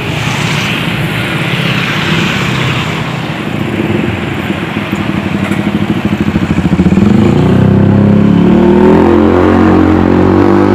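A bus's diesel engine running loud and rough as it passes close by. About seven seconds in, its note starts climbing steadily as it accelerates hard.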